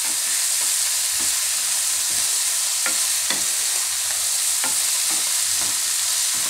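Chopped fresh fenugreek leaves sizzling in hot oil in a non-stick kadai while being stirred with a wooden spatula: a steady high hiss, with a few light clicks of the spatula against the pan.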